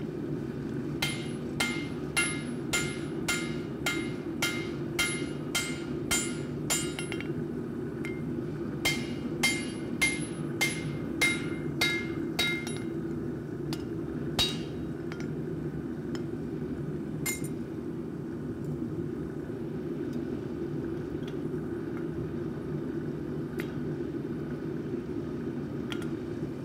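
Hand hammer striking a red-hot axe head, forged from train rail, on a steel anvil. Two runs of steady ringing blows, about two a second, then a pause with only a few single strikes near the end, over a steady low machine hum.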